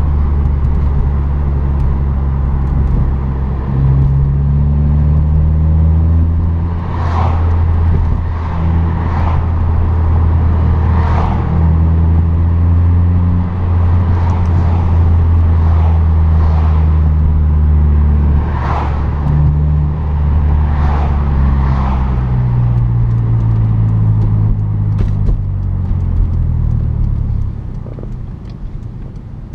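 A 2008 Acura TSX's four-cylinder engine and road noise heard from inside the cabin while driving. The engine note climbs and drops back several times, and the sound gets quieter near the end as the car slows.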